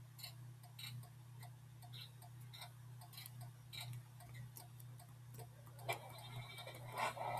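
A bus's flasher relay ticking evenly, about two ticks a second, over a steady low hum. A couple of brief louder sounds come near the end.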